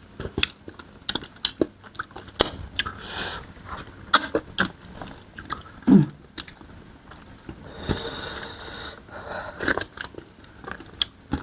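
Close-miked eating of starch fufu, banga soup and chicken: wet chewing and biting with many sharp mouth clicks. A short hum comes about six seconds in, and a brief hiss follows near eight seconds.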